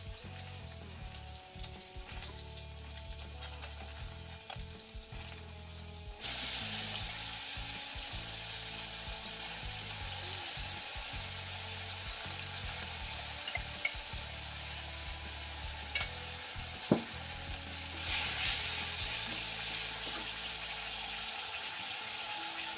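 Fish and spice paste frying in hot oil in a black kadai. The sizzling jumps suddenly loud about six seconds in, then runs steadily. A couple of sharp metal spatula taps on the pan come a little past the middle, followed by a brief louder hiss as it is stirred.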